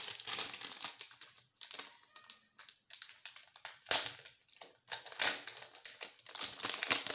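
Plastic packaging crinkling and rustling as it is handled, in irregular bursts, with a sharp tap about four seconds in.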